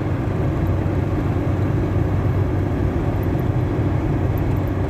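Cargo truck driving at a steady pace, heard from inside the cab: a constant low engine and road rumble.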